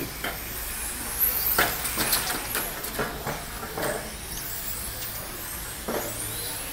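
A vehicle running steadily, with a cluster of sharp knocks about one and a half to four seconds in and another near the end, and thin high whines gliding upward.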